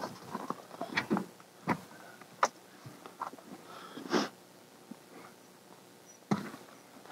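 Rustling and a scatter of light knocks and clicks from handling at a pickup truck's open door and cab. The most prominent knocks come about four seconds in and again a little after six seconds, with a quiet stretch between them.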